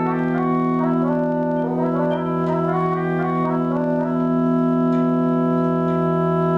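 Instrumental music: a steady low drone under a melody of short stepping notes, which settles into long held chords about four seconds in.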